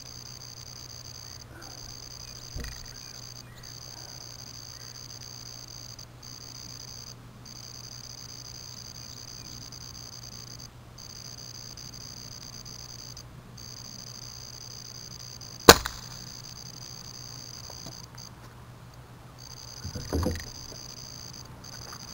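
A .22 nitro-piston break-barrel air rifle, the Benjamin Titan GP, fires once, a single sharp crack a little past the middle. Insects trill steadily throughout, and a softer low thump comes near the end.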